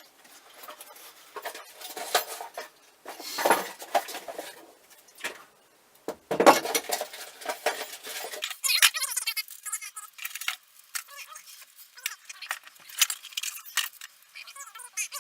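Irregular metallic clinks and rattles of steering-wheel parts and a quick-release hub adapter being handled and fitted onto the steering hub.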